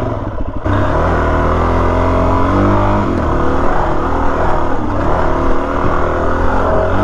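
Suzuki DR-Z400S single-cylinder four-stroke engine pulling the motorcycle along a dirt trail. The engine opens up and gets louder about half a second in, then its note rises and falls with the throttle.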